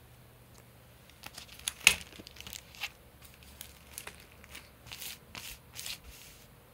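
Plastic clear files crinkling and crackling in irregular bursts as they are handled and slid over one another, starting about a second in, with the loudest crackle just under two seconds in.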